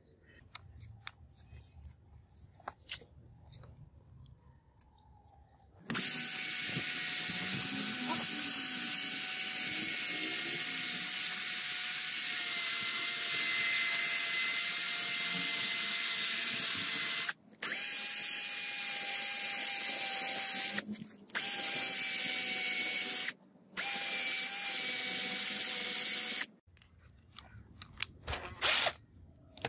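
Cordless drill running at speed with a steady whine and loud hiss, spinning an angle-grinder armature clamped by its shaft in the chuck. It runs for about twenty seconds, stopping briefly three times, after a few seconds of light handling clicks.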